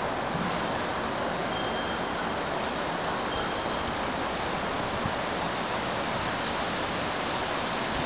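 Steady wind noise from strong snowstorm gusts, an even rushing hiss with no breaks. A couple of faint, short high tones sound over it, around one and a half and three seconds in.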